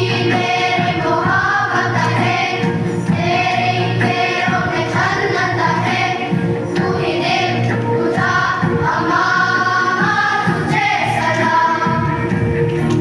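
A choir singing a song over instrumental accompaniment.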